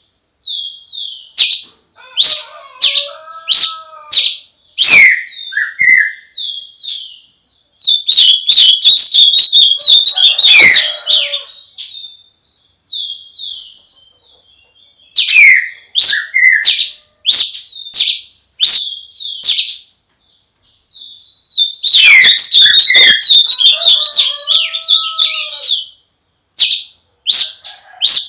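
Songbird singing close up at dawn: bright chirps and sweeping whistled notes, broken by two long, rapid warbling phrases about eight and twenty-two seconds in, with brief pauses between bouts.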